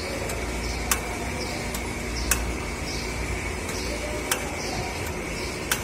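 Hyundai i10 being cranked without starting: sharp metallic clicks from the engine bay roughly every one to two seconds, over a low steady hum. This is the 'tak tak' metallic noise of the no-start fault, which the mechanic puts down to either the starter motor or the battery.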